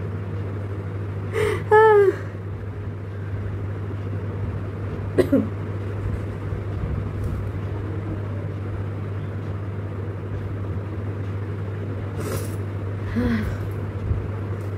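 A steady low hum runs under a woman's few brief wordless vocal sounds: a short wavering one about two seconds in and a short falling one about five seconds in, with fainter ones near the end, as she tickles the inside of her nose with a grass blade to bring on a sneeze.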